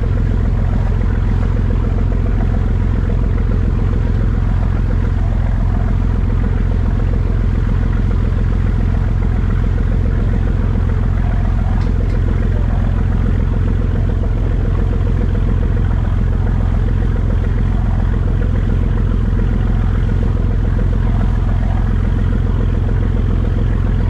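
Motor boat's engine running steadily under way, loud and unbroken, with water rushing past the hull.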